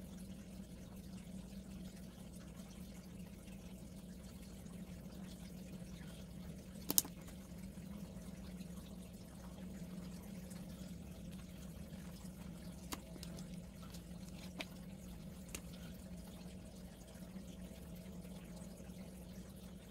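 Faint room tone with a steady low hum and a few sharp, light clicks, the loudest about seven seconds in and three smaller ones between thirteen and sixteen seconds in.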